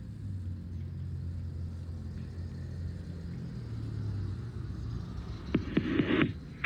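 A low, steady motor-like rumble with a hum, then a few sharp clicks and a short burst of rustling close to the microphone about five and a half seconds in.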